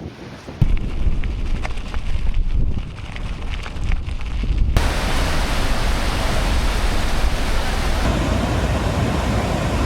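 Wind rumbling on the microphone. About halfway in, it switches abruptly to the steady rush of a waterfall.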